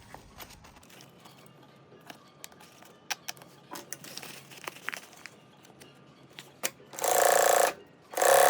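Faint clicks and handling of fabric and tools, then a sewing machine stitching in two short runs near the end, the second a little longer.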